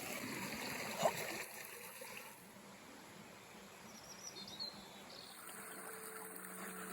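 Small mountain creek flowing and trickling over stones, louder in the first second or so and then softer. A few faint high chirps come about four seconds in.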